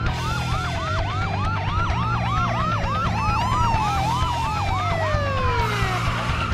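Several police car sirens sounding together: a fast yelp sweeping several times a second over slower falling wails, with a low vehicle rumble underneath. A brief rush of noise comes near the end.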